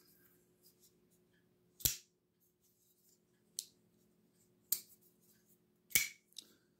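Tuya DW folding knife worked open and shut by hand: a few sharp, separate clicks of the blade snapping into place, the loudest about two, five and six seconds in.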